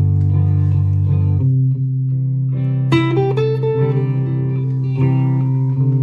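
Latitude Lark Telecaster-style electric guitar played through a Fender GTX100 amp: held notes ringing, a change of notes about a second and a half in, a note bent upward about three seconds in, then repeated picked notes toward the end.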